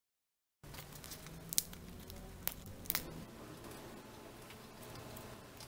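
Faint handling sounds of dried lemon slices being set on a meringue-topped tart: three light, sharp clicks in the first half over low room tone.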